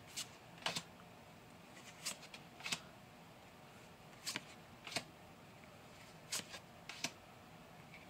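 Pokémon trading cards being flipped through one at a time, each card slid off the front of the stack and tucked behind: faint short swishes and taps, mostly in pairs, about one pair every two seconds.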